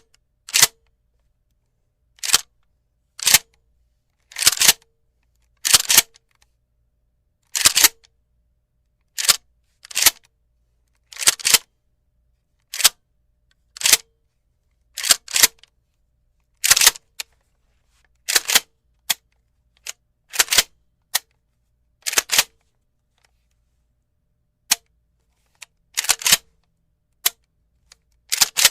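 Shotgun sound effect: a long run of sharp, short shots at irregular intervals, one to two seconds apart, some in quick pairs.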